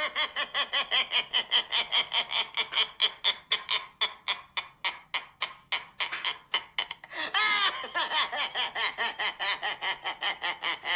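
A person laughing hard and long in quick, even ha-ha pulses, about five a second. The laughter fades for a few seconds in the middle and swells again about seven seconds in.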